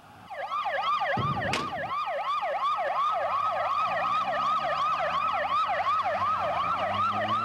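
Several police vehicle sirens sounding together, their fast rising-and-falling wails overlapping. Underneath, the patrol trucks' engines rev up, rising in pitch as the vehicles pull away.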